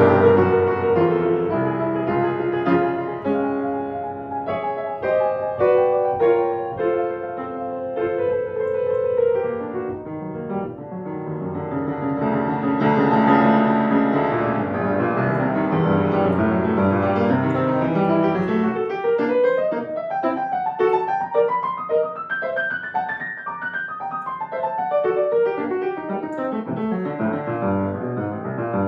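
Grand piano played solo in fast, dense passagework, opening with a loud struck chord. About two-thirds of the way through, a rapid run climbs up the keyboard and comes back down.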